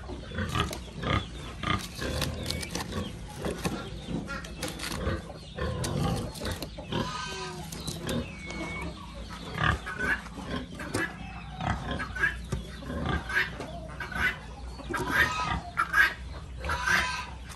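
Pigs grunting and squealing in many short, irregular calls.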